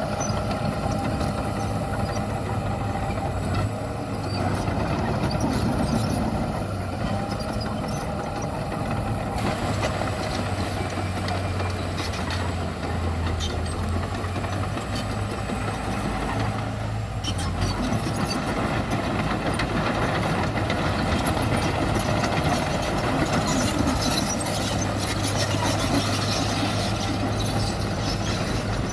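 Diesel engines of heavy earthmoving machinery running steadily with a low hum, with scattered clanks and rattles throughout.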